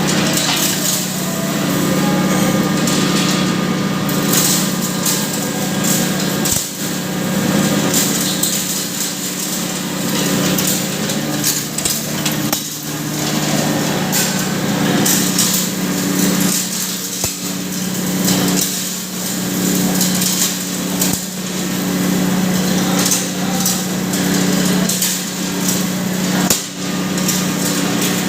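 Impact pulverizer (hammer mill) running at speed and grinding turmeric, a steady motor hum under a dense, irregular rattle and clatter of material being beaten inside the grinding chamber.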